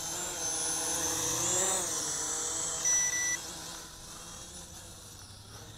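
Small SG700 quadcopter's motors and propellers whining as it lifts off, the pitch shifting about a second and a half in, then fading as the drone moves away. A short electronic beep sounds about three seconds in.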